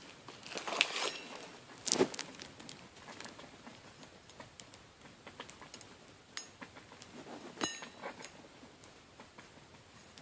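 Shrink-wrapped packaging being cut and pried open with a knife: scattered plastic crinkling, scraping and small clicks, with a short squeak about three-quarters of the way through.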